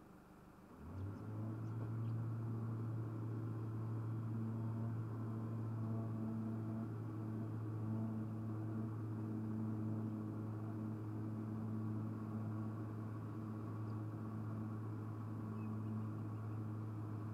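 A motor starts up about a second in and then runs steadily with a low hum.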